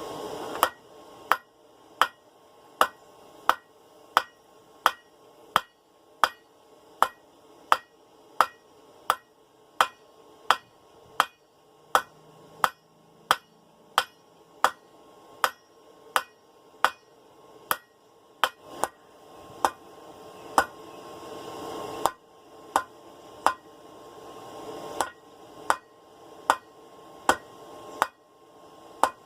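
Blacksmith's hand hammer striking hot 1/2-inch round steel bar on an anvil in steady blows about every 0.7 seconds, each with a short metallic ring. The rhythm pauses briefly about two-thirds of the way through, then resumes.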